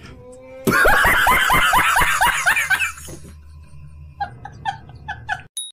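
A man laughing: a loud, rapid run of high-pitched "ha-ha" bursts, about six a second, lasting about two seconds, then softer snickering near the end.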